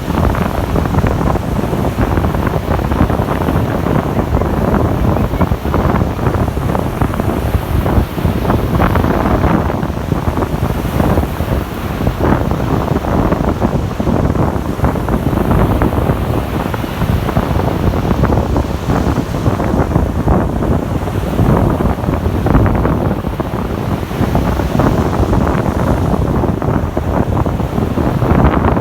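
Strong wind buffeting the microphone over Baltic Sea waves washing onto a sandy beach, a steady loud rumble that rises and falls without a break.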